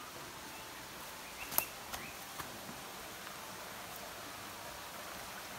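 Faint outdoor ambience: a steady soft hiss with a few short clicks or taps, the sharpest about one and a half seconds in, and faint chirps.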